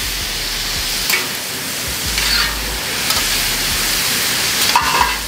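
Chopped onions and bacon sizzling in oil and sauce on a steel flat-top griddle while a metal spatula scrapes and turns them. A few sharp scrapes of the spatula on the steel stand out, the loudest a short clatter near the end.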